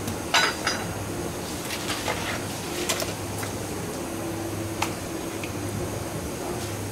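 Metal kitchen utensils (a knife and tongs) clinking and tapping on a cutting board during eel filleting. There are a handful of short clicks, the loudest with a brief metallic ring about half a second in. A steady low hum of background machinery runs underneath.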